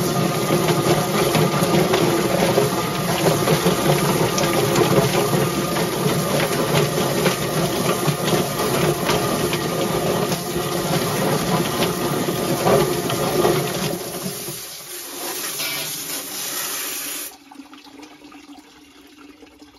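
Kitchener drum chicken plucker running, its motor spinning the rubber-fingered plate with a scalded chicken tumbling against the fingers while a hose nozzle sprays water into the drum. The machine stops about fifteen seconds in, and the water spray cuts off a couple of seconds later.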